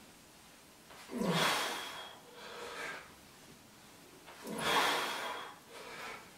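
A man's heavy breathing under effort during barbell squats. Twice, a hard exhale with a short grunt at its start is followed by a shorter, quieter breath, about three seconds per repetition.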